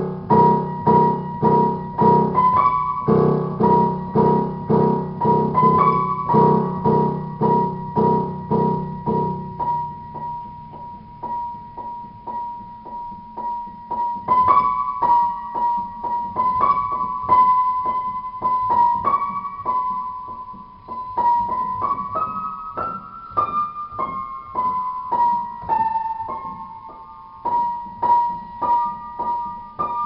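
Solo piano playing a steady run of repeated notes, about three a second: one high note repeats while a melody moves above it. The low chords underneath fade out about ten seconds in, leaving only the upper register.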